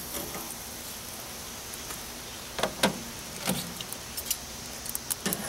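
Chunks of cherry wood being set among hot charcoal in a grill: a few light knocks and clicks of wood and tongs, scattered over a steady background hiss.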